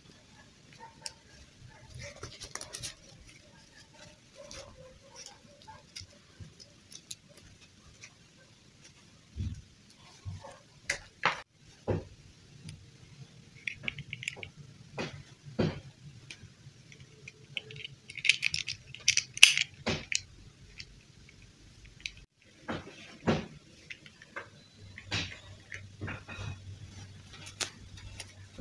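Plastic fashion dolls and their cloth dresses handled close up: scattered small clicks and taps of hard plastic, with rustling of fabric, loudest about two-thirds of the way through.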